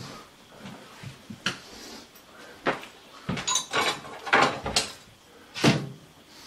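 Knocks and clatter of kitchen drawers, cupboards and utensils being handled in a search for a knife: scattered sharp knocks, a busy run of clatter in the middle, and the loudest knock about five and a half seconds in.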